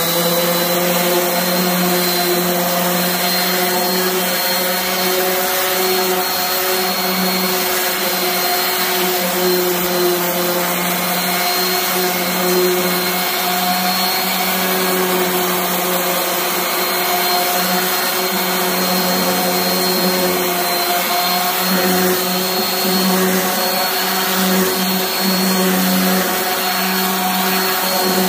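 DeWalt orbital sander running steadily while sanding a band saw's grooved metal table top: a steady motor hum with a thin high whine above it.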